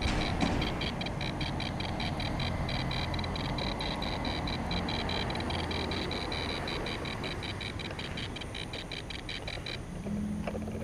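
Handheld Ghost Meter Pro EMF meter giving a rapid, evenly spaced run of high electronic beeps, its alert for a detected electromagnetic field. The beeping stops shortly before the end.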